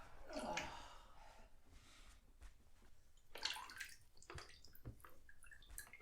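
Bathwater sloshing and dripping as a person settles into a bath, with a couple of short splashes.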